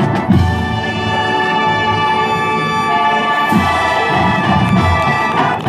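Marching band playing: brass holds sustained chords over low drum hits, moving to a new chord about halfway through.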